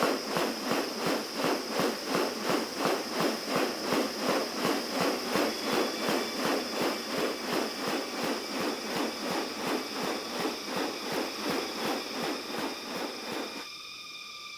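Rhythmic pulsing insect chorus, about three pulses a second, over a steady high-pitched whine. It cuts off suddenly near the end.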